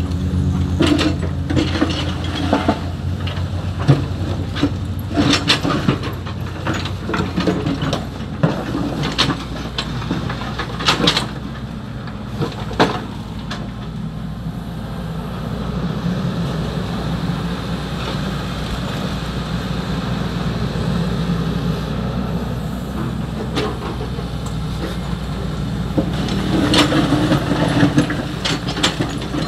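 XCMG 75 excavator's diesel engine running steadily while loading sand-and-gravel fill, with repeated clanks and rattles of material and bucket through the first half. A smoother stretch of engine running follows, and the clattering starts again near the end.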